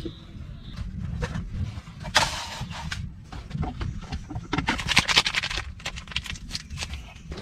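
Irregular clicks and knocks over a steady low rumble, with two short, louder bursts of noise, one about two seconds in and one around the middle.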